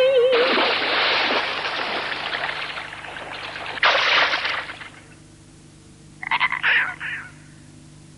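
Cartoon sound effects for a tumble down a grassy slope: a rushing noise that fades over about three seconds, then a sudden short crash about four seconds in. A few brief squeaky cries come near the end.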